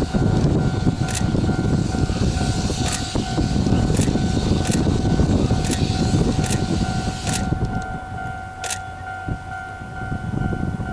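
C58 steam locomotive pulling a train out of a station: a heavy, dense rumble that eases off after about seven seconds. Sharp clicks come at irregular intervals over a steady high tone.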